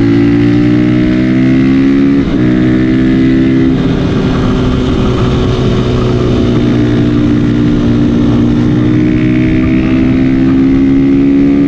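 Supermoto motorcycle with its stock exhaust, engine running under load. The pitch breaks briefly about two seconds in and steps again near four seconds, then climbs slowly and steadily.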